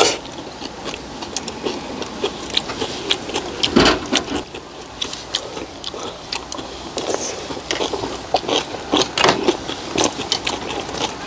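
Eating sounds at close range: chewing and mouth smacking, with irregular small clicks and taps of chopsticks, spoons and clam shells.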